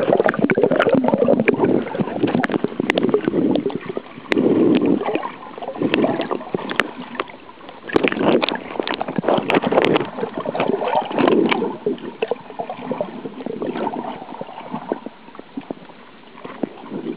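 Water sound heard through a waterproof camera held under the sea: muffled surges of rushing, gurgling water come and go every second or two, with scattered sharp clicks.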